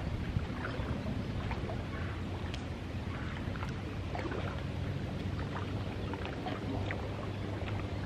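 Steady low motor drone with a constant pitch, with a few faint short ticks over it.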